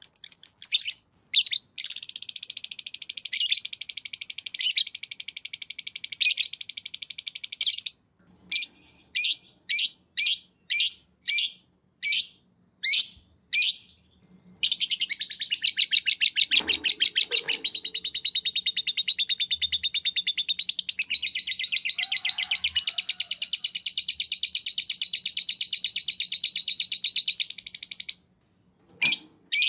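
Canary and lovebird song: two long unbroken rapid high trills, each lasting several seconds, with a run of separate short chirps about twice a second between them.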